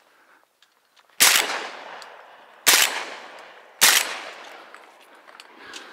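Three shotgun shots from a Browning Auto-5 semi-automatic shotgun, fired in quick succession about a second and a half apart, each followed by a fading echo.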